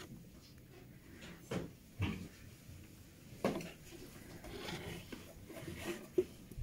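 A few soft knocks and rustles as a sheet of drawing paper on an easel board is handled, with a sharp click about six seconds in and a pencil moving on the paper near the end.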